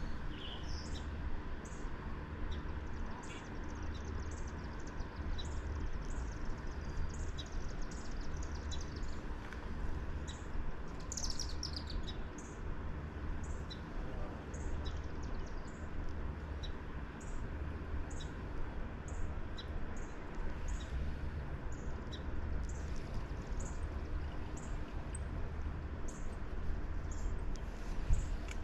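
Short, high chirps repeating about once a second, with one longer falling chirp about 11 seconds in, over a steady low rumble.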